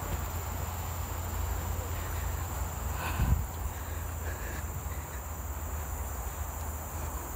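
Insects in dense forest making a steady, high-pitched drone, over a constant low rumble. A brief, louder sound comes about three seconds in.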